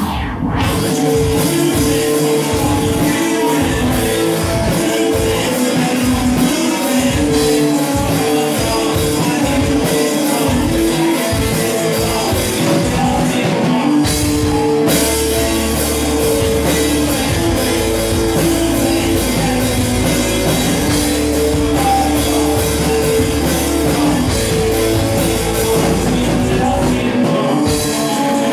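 Rock music with a steady drum beat, guitar and singing. About halfway through, the pulsing beat gives way to a sustained deep bass.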